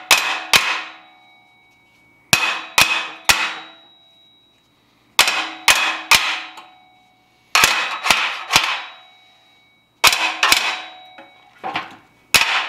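Hammer blows on the steel blower housing of an old oil burner, knocking a stuck section loose. The blows come in quick sets of three, a set about every two and a half seconds, and the metal rings on after each one.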